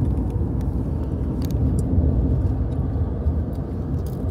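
Steady low rumble of a car travelling at highway speed: tyre and road noise heard from inside the cabin.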